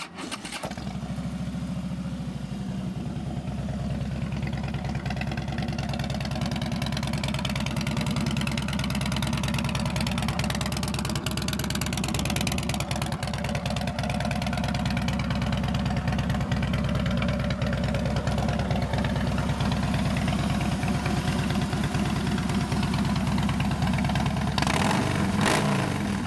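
Harley-Davidson 103-cubic-inch fuel-injected Twin Cam V-twin catches about half a second in and settles into a steady idle through Vance & Hines Long Shot pipes, with a brief rise near the end.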